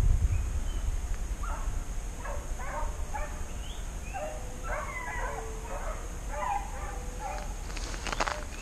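A pack of hunting hounds baying and yelping in chorus while running a trail, the short calls overlapping one after another. A few sharp clicks come near the end.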